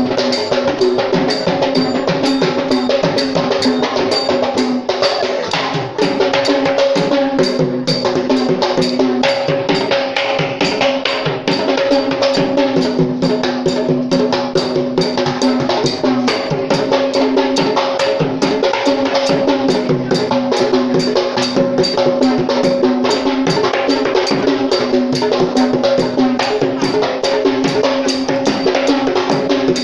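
Sri Lankan traditional drum ensemble: several hand drums struck in a fast, dense, unbroken rhythm, with a few steady held tones underneath.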